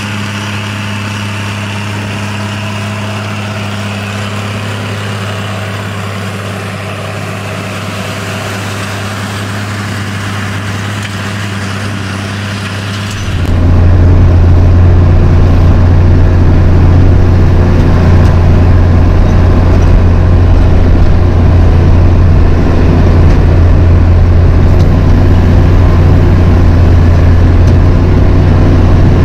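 Tractor engine running at a steady speed, with a constant low hum; the sound abruptly becomes much louder and heavier about 13 seconds in and stays that way.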